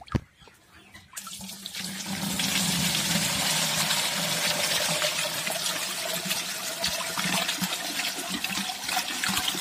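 Water pouring out of a tipped aluminium basin into a woven bamboo basket and straight through its weave onto the ground, starting about a second in and then running as a steady gush. There is a single sharp knock just at the start.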